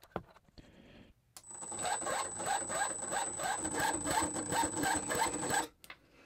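Electric starter cranking a small single-cylinder four-stroke model glow engine for about four seconds, a rhythmic chugging of about five or six beats a second under a thin steady high whine, then cutting off; the engine does not catch, and the owner thinks the battery is not strong enough to start it.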